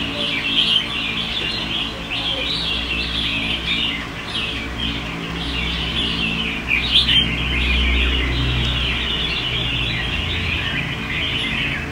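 Dense, continuous chorus of short chirps and calls from caged red-whiskered bulbuls, with a steady low hum underneath.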